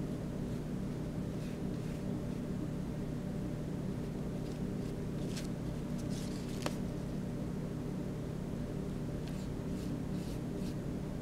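A paintbrush stroking across paper: a scatter of soft, short swishes, bunched in the middle and again near the end, with one sharp tick a little past halfway, over a steady low background hum.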